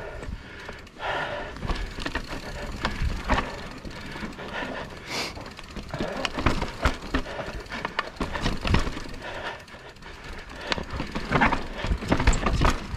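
Mountain bike clattering over a rough trail, with irregular sharp knocks and rattles from the bike hitting roots and rocks. The rider is breathing hard.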